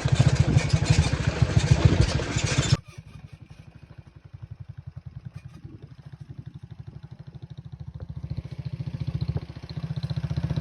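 Vehicle engine running with an even low beat. The sound drops abruptly about three seconds in, then grows louder again near the end.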